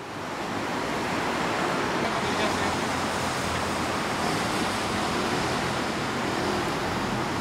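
Steady rushing outdoor background noise of wind and traffic, fading in over the first second.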